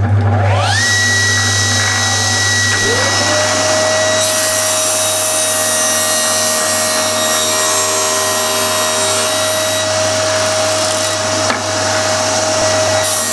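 Table saw and shop-vacuum dust extraction starting up: one whine rises to pitch within the first second and a second rises about three seconds in, then both run steadily while a plywood board is cut through the blade.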